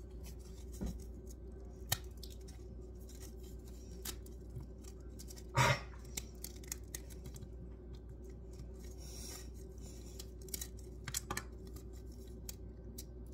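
Small dry crackles and clicks of a crunchy treat bar being crumbled by hand over pet food bowls, with one louder short rustling knock about five and a half seconds in, over a steady low hum.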